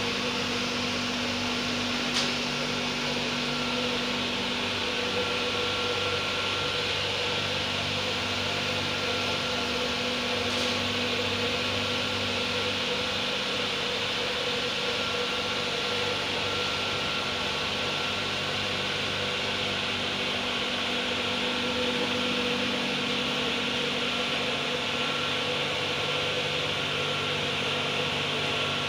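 FAWDE six-cylinder diesel engine running steadily at a constant speed during a full-throttle load test, a continuous even engine note with no change in pitch.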